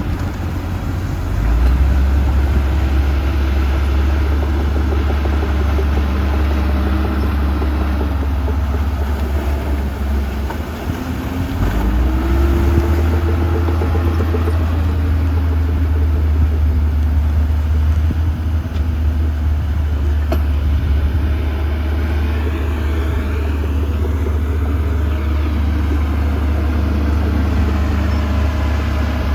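Diesel engines of heavy earthmoving machines running under load, a steady low rumble. The engine note dips briefly about ten seconds in, then picks up again.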